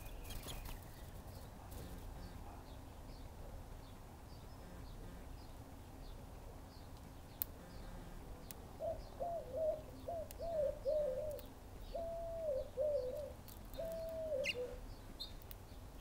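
A dove cooing, a run of low notes starting a little past halfway, over faint, steady chirping from small birds.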